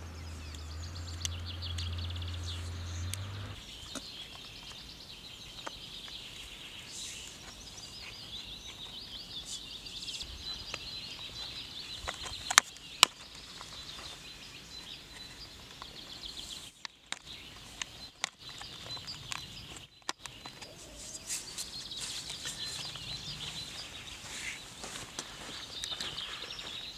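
Outdoor field ambience with continuous high-pitched bird chirping. There is a low hum for the first few seconds and two sharp clicks about halfway through.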